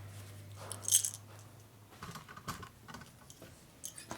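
Metal tools and parts clinking as they are handled on a workbench, with one sharp clink about a second in and lighter clicks after. A low steady hum runs underneath and stops about two seconds in.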